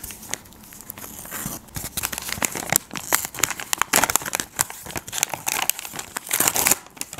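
Hand-made paper packet, glossy with clear tape, crinkling with dense sharp crackles as it is pulled open and unfolded by hand.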